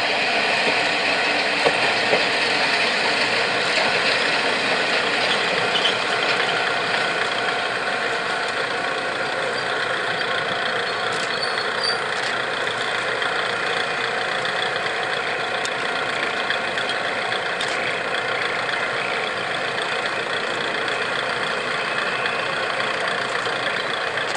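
Kiha 200-series diesel railcar with its engine running steadily, the train drawing into the station and then standing with the engine idling.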